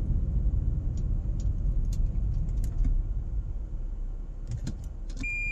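Inside the cabin of a 2011 Toyota Prius: a steady low rumble with a few light clicks. Near the end the reverse-gear warning beeper starts, sounding a repeating single-pitch beep about every 0.7 s.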